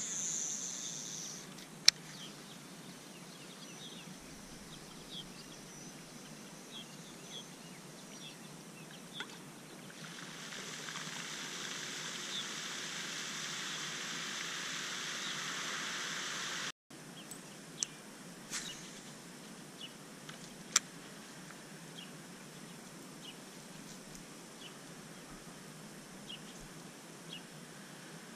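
Outdoor ambience: a steady background hiss with short, high bird chirps every second or so and a few sharp clicks. About ten seconds in, a louder steady hiss joins for some six seconds and cuts off abruptly.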